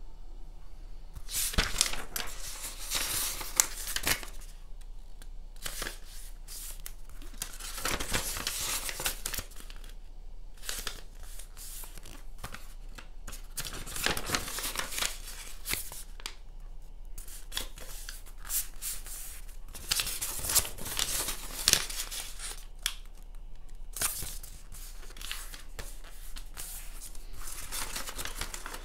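A square sheet of origami paper being folded by hand: rustling as it is lifted and bent, and sharp swipes as the creases are pressed flat, in irregular strokes with short pauses between folds.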